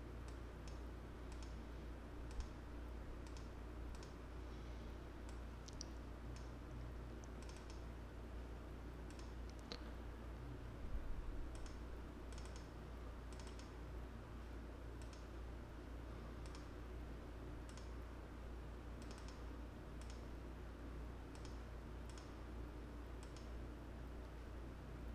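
Computer mouse clicking: scattered single and double clicks over a steady low electrical hum, with a short louder bump about eleven seconds in.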